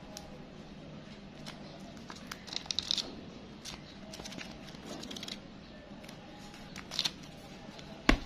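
Crisp new banknotes rustling and crackling as a bundle of Bangladeshi 20-taka notes is handled and flipped through, with louder crackles about 3 s and 7 s in. A single sharp thump near the end.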